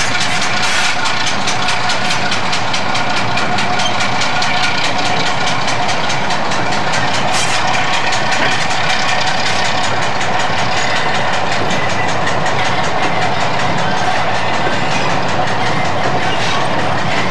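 Class 08 shunter's English Electric six-cylinder diesel engine running steadily with a fast, even beat as it hauls a train of hopper wagons.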